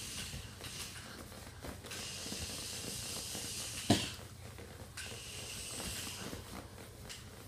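Tiny remote-control pocket racer car driving on a hardwood floor: a thin, high whirr of its little electric motor and wheels that starts and stops in spurts. One sharp knock about four seconds in.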